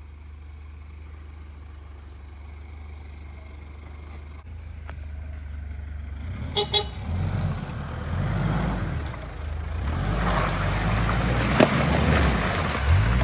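Off-road vehicle's engine running as a low steady hum, then from about six and a half seconds it gets louder and revs up and down, with rough tyre and track noise, as the vehicle works along a rough track. A short pitched blip comes just as the engine picks up.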